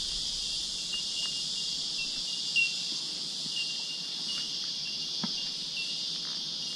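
Steady, high-pitched chorus of cicadas in summer heat, unbroken throughout, with a few faint clicks mixed in.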